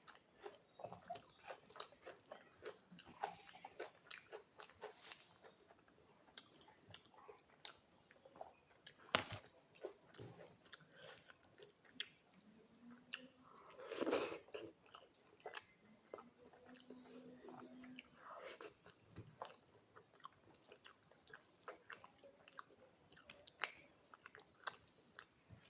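Close-miked eating sounds: a person chewing and biting rice and vegetables, with wet mouth clicks and soft crunches coming irregularly. A sharper click comes about nine seconds in, and a louder burst of chewing comes around fourteen seconds.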